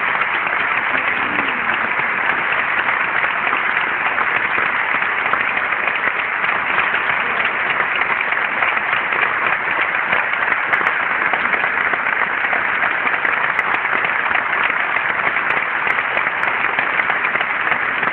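Large concert-hall audience applauding, a dense, steady clapping that keeps up without a break.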